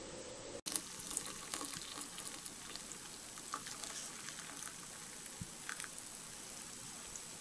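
Hot water being poured into a ceramic mug over a tea bag: a steady splashing stream with small clicks, starting abruptly about half a second in.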